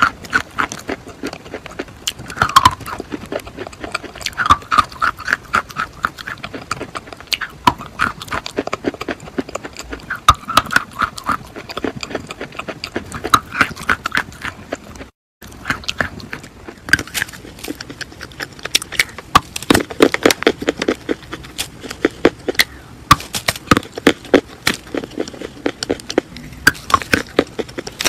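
Close-miked biting and chewing of school chalk: dense, crisp crunching and crumbling clicks, with a few short squeaks in the first half. The sound cuts out briefly about fifteen seconds in, then the crunching picks up again.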